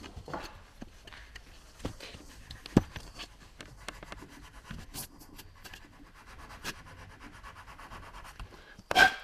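A small blade scraping and shaving dry cane at the mouthpiece end of a Sicilian cane flute (friscalettu), cutting its windway: faint scratching and rubbing with scattered small ticks. A sharp click comes about three seconds in, and a louder short knock near the end.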